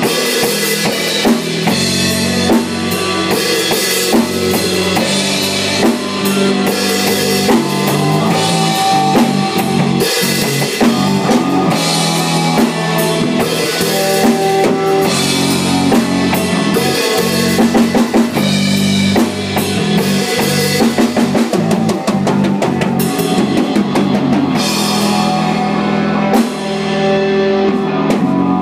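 Live band jam led by a drum kit, with steady bass drum and snare hits under sustained pitched instruments.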